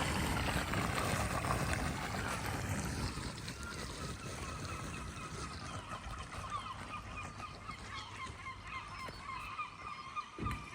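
Floodwater rushing and gurgling down a street drain, the rush slowly growing quieter, with many short high squeaks and gurgles from about three seconds in.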